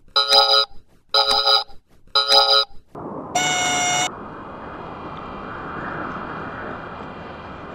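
Electronic alarm-style beeps repeating about once a second, three times, then one longer beep of a different pitch. After that a steady mechanical hum with a faint whine runs on.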